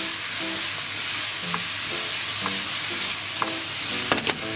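Bacon, onion, green pepper and mushrooms sizzling in a frying pan as a wooden spatula stirs them, scraping the pan about twice a second, with a sharper knock near the end.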